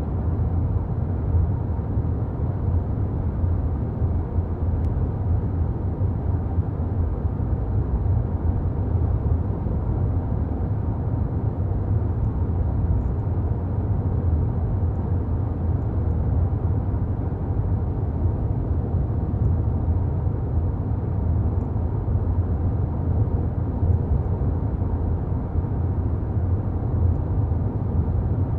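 Steady low rumble of car cabin noise, heard from inside a car in slow stop-and-go city traffic.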